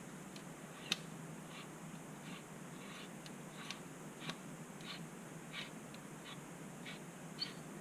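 Blue Snowball iCE microphone being screwed onto its small metal tripod: faint scratchy rasps about every two-thirds of a second as it is turned on the threads, with a sharp click about a second in.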